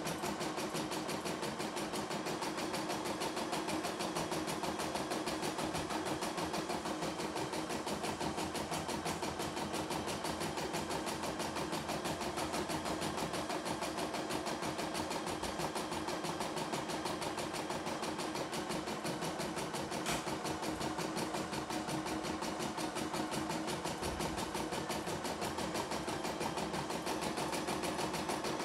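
CNY E960 computerised embroidery machine stitching a design: the needle runs steadily with a rapid, even clatter as the hoop is driven under it.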